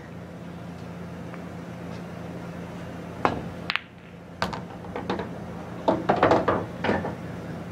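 Pool balls rolling and knocking on a pool table. There are a few sharp clacks about three to five seconds in, then a quick cluster of knocks around six to seven seconds in.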